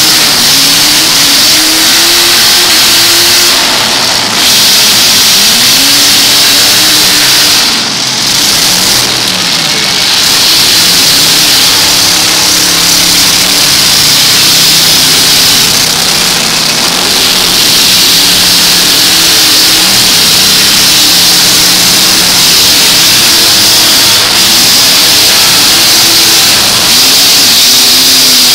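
Several demolition derby pickup trucks' engines revving and running hard at once, their pitches rising and falling and overlapping, very loud throughout.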